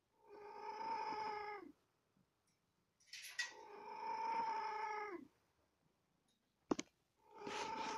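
A cat mewing in long, drawn-out calls, three in all, each held at a steady pitch and dropping at the very end. There is a sharp click between the second and third call.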